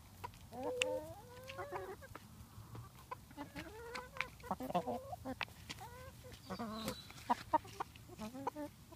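Several chickens clucking and giving short, rising calls while they forage, over many sharp clicks of beaks pecking at the ground.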